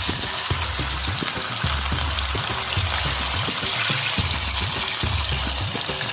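Coated bitter gourd slices deep-frying in smoking-hot mustard oil: a dense, steady sizzle and hiss of the oil bubbling around them. A low repeating thump runs underneath.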